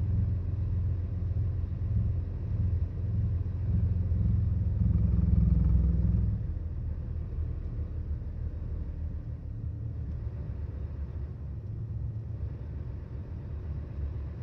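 Volvo 8700 bus's diesel engine running with a deep rumble, loud at first, then dropping off abruptly about six seconds in and carrying on more quietly.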